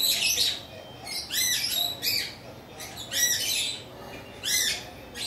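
A bird calling again and again: short, sharp, high-pitched calls that each rise and fall, coming every second or so, often in quick pairs.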